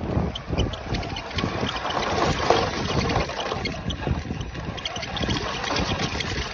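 Onboard sound of a radio-controlled pickup truck driving over gravel and stony ground. Wind buffets the microphone, and irregular crunches and knocks come from the wheels and body.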